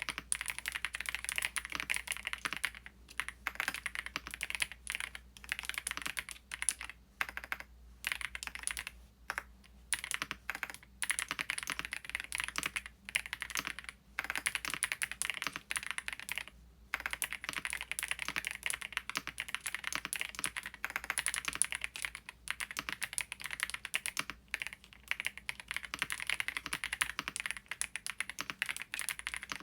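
Typing on a Qsenn Q104 keyboard with PBT keycaps and Haimu Midnight switches: a fast, continuous run of key clacks, broken by brief pauses several times.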